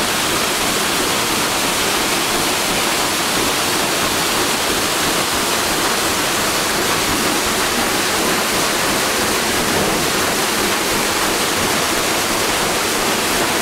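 Stern paddle wheel of the steamboat Natchez churning the river, a steady, loud rush of splashing water.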